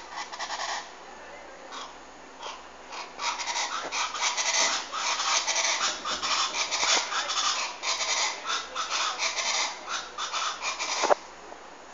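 A bird making a strange noise: a fast run of short, scratchy, noise-like pulses, many a second, growing louder about three seconds in and stopping abruptly near the end.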